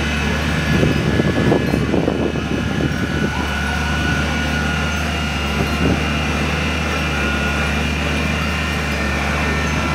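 Steady low mechanical hum, with a louder stretch of indistinct rough noise about one to three seconds in.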